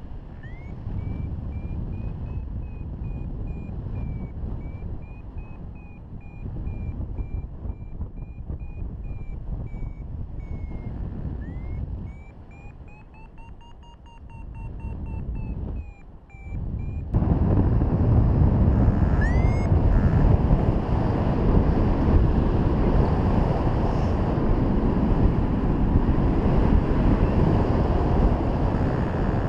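Paragliding variometer beeping, a run of short tones that drift up and down in pitch: the climb tone that signals the glider is in rising air. It sounds over wind rushing on the microphone, which a little past halfway jumps much louder, with only a couple of brief rising chirps after that.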